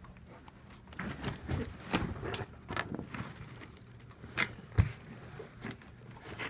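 Hands pressing and pushing on the sheet-metal top cover of a Cisco Nexus 1110-X rack server: scattered clicks, knocks and scrapes of metal, with the loudest knock just under five seconds in. The lid does not slide open.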